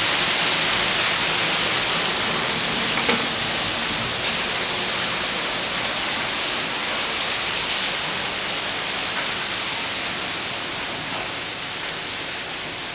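Heavy rain: a steady, even hiss of downpour that slowly fades.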